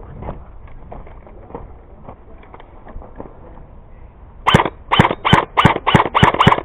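Airsoft gun firing a quick string of single shots, eight or nine sharp cracks about three a second, starting about four and a half seconds in after faint rustling.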